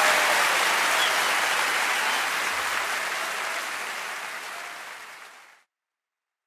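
Large concert crowd applauding. The applause fades steadily and cuts off a little over five seconds in.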